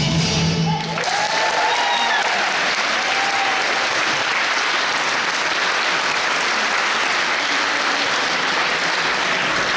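Music with plucked strings stops about a second in, and the audience breaks into steady applause, with a few voices calling out as the clapping starts.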